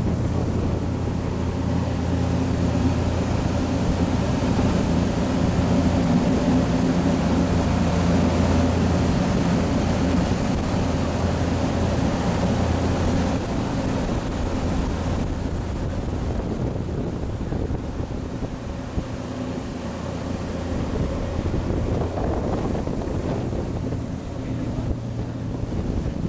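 Glass-bottom tour boat's engine running steadily under way, a low drone with water rushing past and wind buffeting the microphone. The wind hiss drops off about halfway through.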